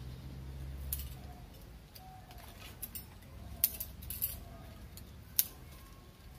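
Thin dry twigs being snapped by hand for kindling: several sharp cracks at irregular intervals, with light rustling between them.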